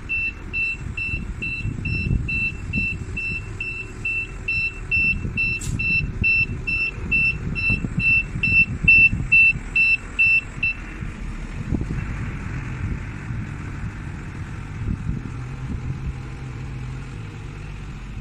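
Diesel forklift's reversing alarm beeping in an even rhythm about twice a second over the running diesel engine. The beeping stops about ten and a half seconds in, and the engine keeps running.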